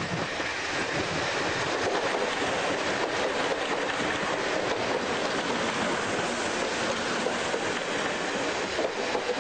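Electric multiple unit train passing close by: a loud, steady rush of wheels on rail that builds over the first second and holds.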